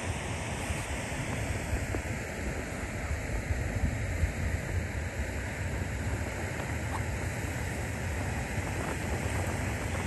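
Strong snowstorm wind blowing without a break, buffeting the microphone with a fluctuating low rumble.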